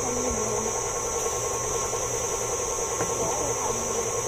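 KitchenAid Artisan stand mixer running steadily, a constant motor hum with a hiss, with faint voices in the background.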